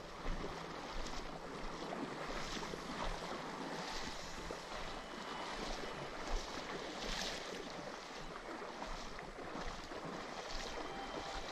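Shallow river current rushing and rippling steadily over a stony riffle.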